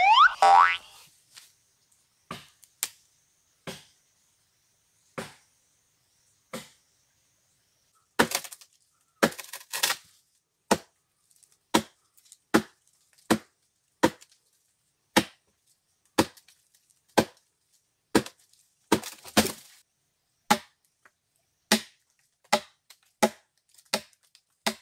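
Axe chopping into a fallen log: sharp wooden blows, a few scattered ones at first, then a steady run of chops a little over one a second from about eight seconds in. A short rising whistle-like glide sounds at the very start.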